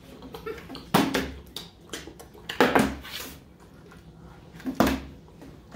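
Plastic bottle partly filled with liquid being flipped and landing on a wooden table: three knocks with a dull thud, about two seconds apart.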